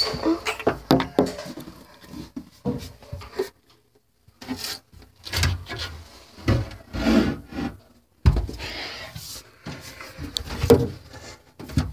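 Irregular rustling, rubbing and light wooden knocks of a person shifting about and handling things in a small closet, in uneven bursts with short pauses.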